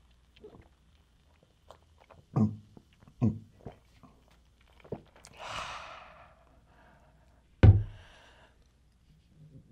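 A person gulping soda from a glass mug in loud swallows, then a long breathy exhale, with one loud sudden thunk near the end.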